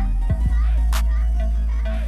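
Music with a heavy, steady bass line and a sharp percussive hit about a second in.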